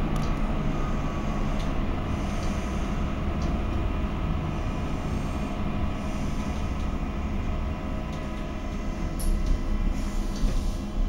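Essen Stadtbahn light-rail car running, heard from inside the passenger compartment: a steady rumble of wheels on rail with a steady hum from the drive, easing a little after about eight seconds.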